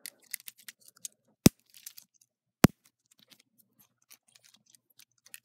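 Plastic K'NEX pieces snapping onto connectors: two sharp snaps about a second apart, with faint plastic clicking and handling around them.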